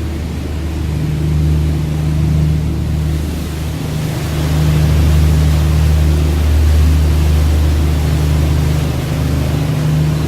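Engine of a Seine sightseeing cruise boat droning steadily at a low pitch, with a rushing hiss of water and wind that swells about four seconds in.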